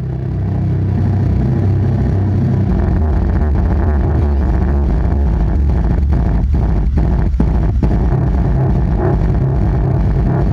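Two Alpine Type-E 10-inch subwoofers playing deep bass loudly inside the car, the low notes swamping the microphone, with a few short clicks in the second half.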